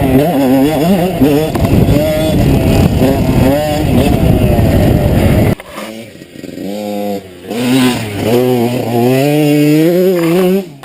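Kawasaki KX 125's single-cylinder 125 cc two-stroke motocross engine running hard and loud for about five seconds. The level then drops suddenly, and the engine note keeps rising and falling in pitch as the throttle is worked on and off. It cuts off sharply at the end.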